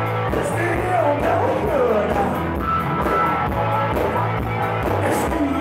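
Live blues-rock band playing, with electric bass, electric guitar and drums. A lead line slides down in pitch several times over a steady bass line and regular drum beat.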